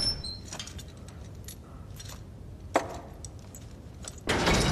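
Small metallic clicks and rattles of a traditional padlock being picked, with one sharper click near three seconds in. A louder burst of noise starts near the end.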